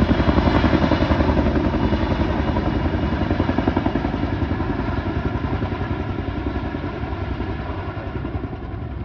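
Boeing CH-47 Chinook tandem-rotor helicopter flying past, its rotor blades beating in a fast, even chop. The sound grows steadily fainter as the helicopter moves away.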